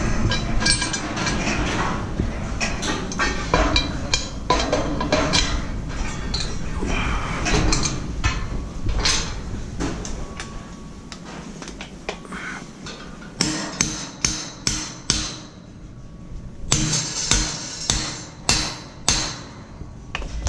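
Steel scaffold parts clanking as they are handled, then two runs of hammer blows on steel scaffold fittings, about two or three strikes a second, starting about two-thirds of the way in and again near the end.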